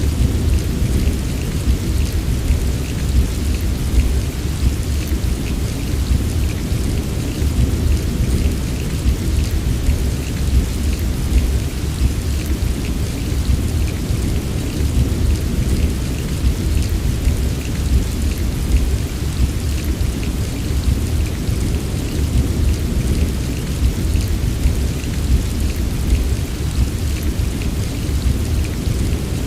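Steady heavy rain, dense patter of drops over a constant deep low rumble, unchanging throughout.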